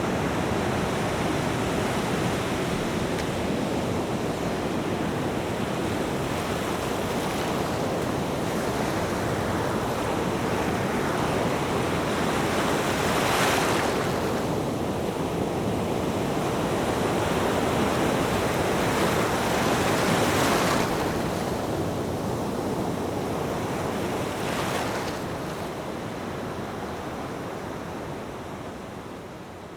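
Ocean surf: a steady wash of waves on the shore, with three louder breakers a few seconds apart in the second half. The sound fades out near the end.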